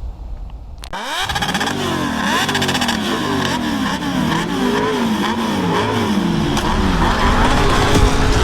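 Honda CB 300 single-cylinder motorcycle engine revved up and down in quick, repeated blips, its pitch climbing and falling over and over, starting about a second in.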